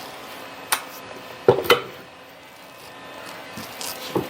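A few sharp metallic knocks and clinks from handling the drill press's chuck and spindle, the loudest a quick double knock with a short ring.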